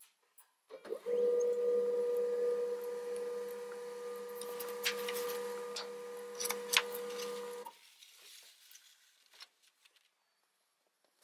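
HP desktop printer running for about seven seconds: a steady motor whine with a few sharp clicks near the middle, starting about a second in and stopping abruptly.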